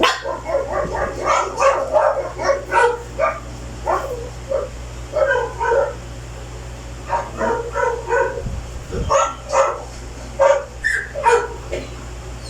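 A dog barking in quick, short barks and yips, many in a row, with a pause of about a second near the middle. A steady low hum runs underneath.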